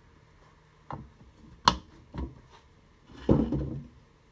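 A few scattered knocks and clunks of objects being handled and set down, with a sharp louder knock about two seconds in and a short run of clattering near the end.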